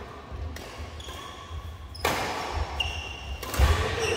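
Badminton rackets striking a shuttlecock in a doubles rally: three sharp hits spread over the few seconds, the loudest about two seconds in, each ringing on in the echo of a large metal-walled hall. Short high squeaks of court shoes come between the hits.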